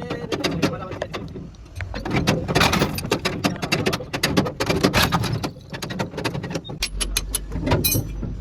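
Rapid, irregular metallic clanks and knocks of tools and parts being handled during heavy truck axle repair work. A steady low hum joins about seven seconds in.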